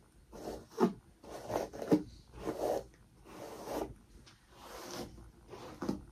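Hair being detangled: a run of short rasping strokes pulled through tangled hair, about one a second.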